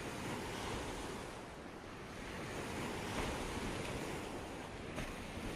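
Ocean waves washing onto a shore, a steady hiss of surf that swells and eases gently.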